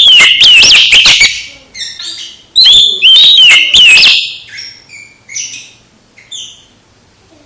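Oriental magpie-robin (kacer) singing loud, rapid whistled phrases with sweeping notes in two bursts, the second about two and a half seconds in, then a few softer scattered notes before falling quiet.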